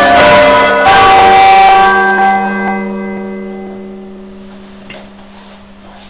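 Church bells rung by hand with ropes, struck one after another, stopping about two seconds in; their hum then rings on and slowly dies away.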